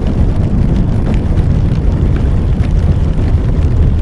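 Loud, steady wind rush and buffeting on the microphone of a motorcycle being ridden at speed in a storm, with a few faint ticks over it.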